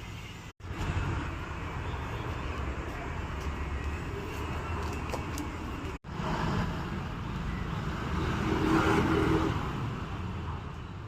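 Road traffic noise, with one vehicle passing louder about nine seconds in. The sound cuts out abruptly twice, briefly.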